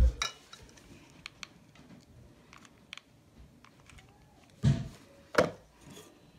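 Light clicks and taps of craft pieces being handled on a cloth-covered table: metal jar lids, buttons and a hot glue gun. A thump at the start and two louder knocks about five seconds in.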